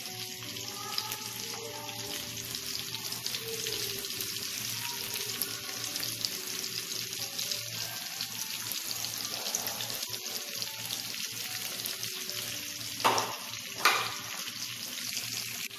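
Beaten egg sizzling as it fries in hot oil in a nonstick pan, a steady crackling hiss. Two short louder sounds come about 13 and 14 seconds in.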